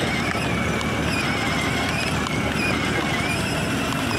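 Children's electric ride-on toy jeep driving over wet asphalt: a steady, slightly wavering high whine from its motor over the rolling noise of its wheels.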